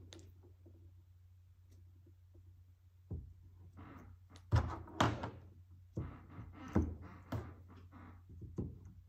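Plastic pegs being picked up and pushed into a plastic pegboard on a tabletop: a run of light knocks and clicks, coming every half second or so in the second half, over a steady low hum.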